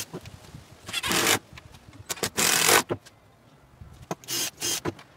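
Cordless drill driving screws into a pine frame in three short bursts of about half a second each.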